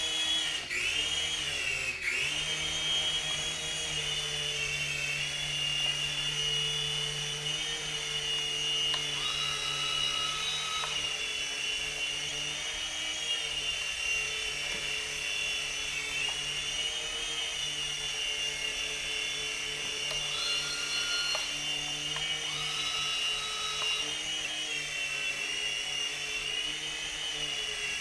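Electric motors and rotor blades of a DFD Firewolf F103 micro RC helicopter in flight, a steady high-pitched whine. Its pitch dips and recovers twice near the start, and a second higher tone comes and goes a few times.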